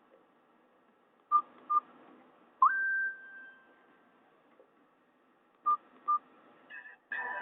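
Nokia 216 mobile phone beeping through its speaker: two short keypad beeps, then a short whistle-like tone that slides up and holds before fading, then two more short beeps.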